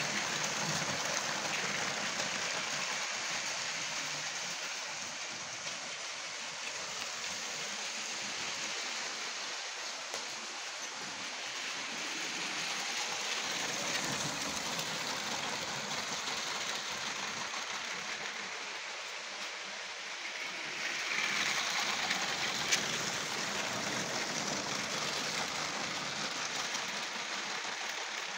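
Motorised Lego train running on plastic Lego track, a steady whirring noise of its motor and wheels that grows louder as it passes close and eases as it moves away, several times over.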